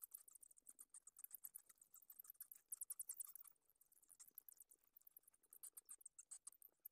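Faint, rapid high-pitched clicking and squeaking of a colony of roosting bats on a cave ceiling, irregular and many at a time, busiest about three seconds in and again near the end.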